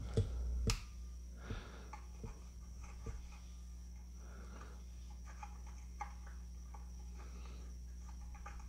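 A wire terminal being soldered with a soldering gun, heard as two sharp clicks in the first second, then faint small ticks and handling sounds over a low steady hum.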